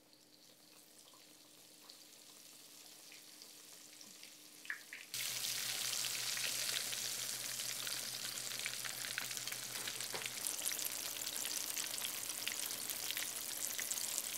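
Breaded chicken-fried steak frying in hot grease in a cast-iron skillet: a faint sizzle at first, then about five seconds in a sudden much louder, dense crackling sizzle that runs on.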